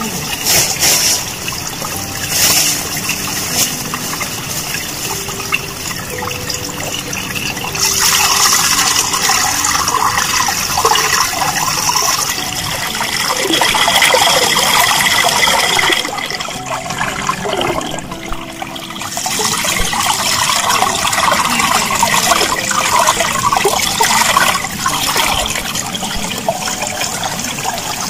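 Spring water pouring from a pipe into a shallow rocky pool, a steady splashing that gets louder for several seconds at a time as hands break up the stream under the pipe and rinse in the water.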